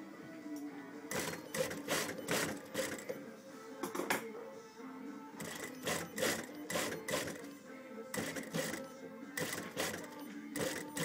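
Sewing machine stitching a run-and-fell seam in several short runs of rapid needle clicks with brief pauses between them, over the steady hum of its motor.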